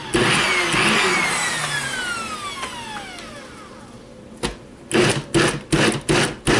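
Nutribullet Classic 600 blender motor pulsed briefly on a chunky load of tomato and onion, then winding down with a falling whine over a few seconds. Near the end comes a quick series of short knocks, about two or three a second.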